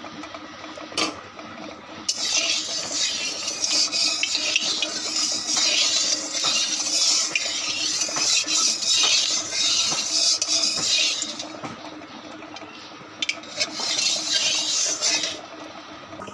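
A flat steel spatula scraping and stirring around a metal kadai that holds a little hot oil: one long spell of scraping starting about two seconds in, then a pause, then a shorter spell near the end.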